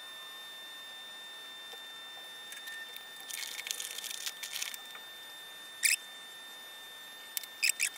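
Scratching and scraping of small hand work on a hot-glued, heat-shrunk audio jack plug as the excess glue is picked and trimmed off. A cluster of scratchy sounds comes about midway, then a single sharp scrape and a few quick clicks near the end, over a faint steady high whine.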